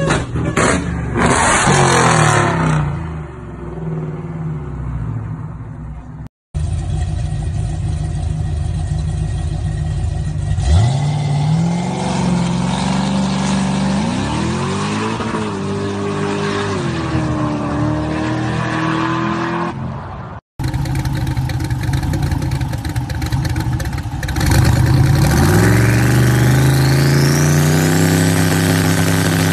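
Muscle-car V8 engines in three short clips. First, a supercharged V8 gives a few sharp revs. Next, a Chevrolet Chevelle runs steadily, then its note climbs as it accelerates away. Last, a Chevrolet Nova idles, then is revved hard and held high before the revs fall.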